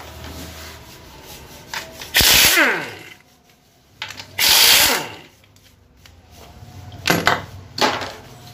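Impact wrench zipping out the 10 mm bolts of an automatic transmission's oil pan in four bursts: two longer runs of well under a second each, then two short blips near the end. A falling whine follows the first burst as the tool spins down.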